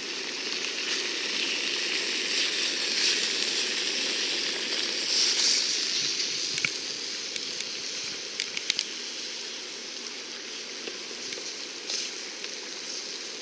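Chicken, onions, squash and zucchini sizzling steadily in a pan over a Snow Peak gas camp stove, with a few sharp pops or clicks.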